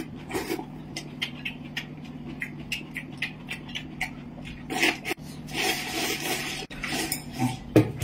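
Someone eating from a porcelain bowl with chopsticks: quick small clicks of the chopsticks against the bowl and wet chewing and slurping sounds, denser in the second half. A louder knock near the end as a bowl is set down on the table.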